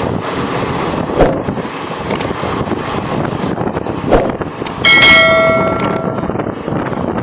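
Steady rumble of a train with wind buffeting the microphone. A couple of sharp clicks, then, about five seconds in, a loud bell-like metallic ring of several pitches that starts suddenly and fades within about a second.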